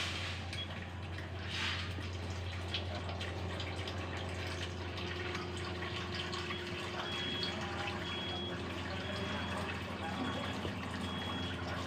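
Water running through an Enagic LeveLuk Jr IV water ionizer over a steady low hum while its modes are switched. From about halfway, a short high beep repeats roughly once a second.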